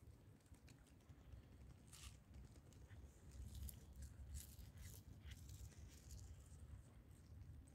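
Faint, scattered clicks and smacks of a cat chewing and tearing at a piece of sausage, over a low rumble.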